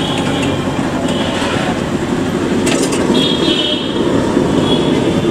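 Busy city-street traffic noise, a steady rumble, with a high squeal that fades in and out and a brief metallic clatter about two and a half seconds in.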